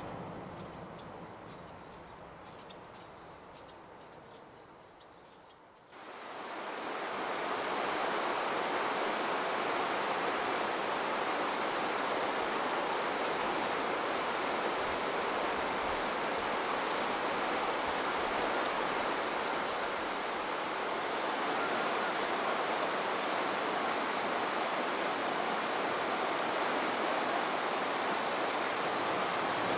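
A train's sound dying away over the first few seconds, with faint high chirping at a steady beat. About six seconds in, a steady rushing noise of flowing river water sets in and holds.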